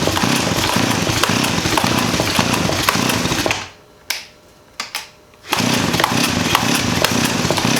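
Stihl 028 AV Super two-stroke chainsaw engine firing and running roughly on full choke, dying out about three and a half seconds in, then catching again about two seconds later.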